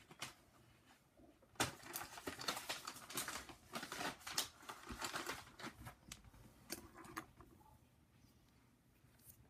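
Irregular quick clicks and rustles of small objects being handled, starting about a second and a half in and dying away after about six seconds.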